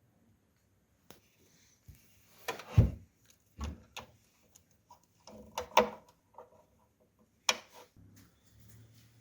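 Irregular knocks, clicks and rattles of parts and tools being handled, with the sharpest knocks about three, six and seven and a half seconds in.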